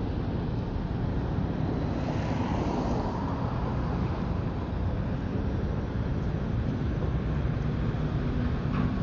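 Steady rumble of road traffic and construction-site noise, with wind on the microphone; it swells a little about two seconds in.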